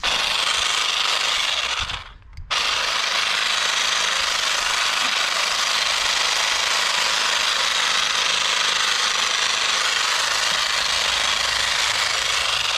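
Handheld power garden tool running at full speed with a buzzing rattle. It runs for about two seconds, stops briefly, then starts again and runs steadily for about ten seconds before cutting off.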